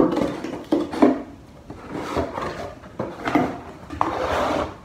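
Cardboard shipping box being handled and pulled open by hand: scraping and rustling of cardboard flaps with several sharp knocks, and a longer scrape near the end.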